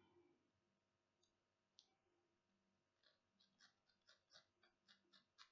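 Very faint, quick scratchy stabbing of a barbed felting needle into a wool yarn pom-pom, starting about three seconds in at about four strokes a second, as the fibres are felted together.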